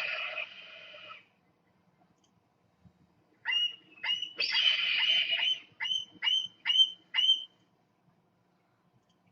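Red-tailed hawk calling: a raspy scream trails off in the first second. After a pause come two short calls, a hoarse scream about a second long, then five short, sharp downward calls in quick succession.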